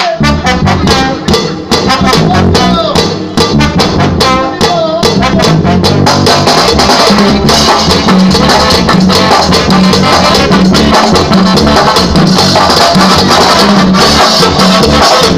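Loud live Latin dance band music with a saxophone and brass section over drums, played through a PA. Quick percussion hits stand out in the first few seconds, then the whole band plays steadily.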